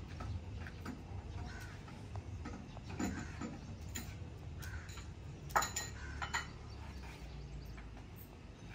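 Crows cawing in short, scattered calls. About five and a half seconds in, a sharp metal clank of a pot or kettle being handled at the clay stove, with a lighter clink just after.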